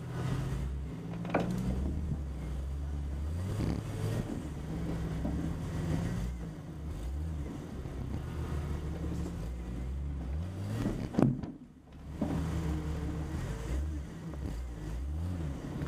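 Jeep Cherokee engine running at low revs, its pitch rising and falling as it crawls over rocks on a trail. A sharp knock comes just over a second in, and a louder bang about eleven seconds in, followed by a brief moment of near quiet.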